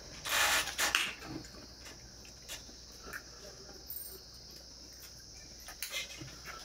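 Hand-eating sounds: fingers mixing and scooping rice on a steel plate, with faint small clicks and rustles, and a short loud noisy burst about half a second in. A steady high-pitched hiss sits underneath.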